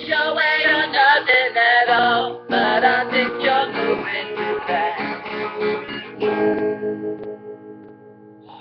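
Guitar strumming under a sung closing line, then one last chord left to ring and fade out.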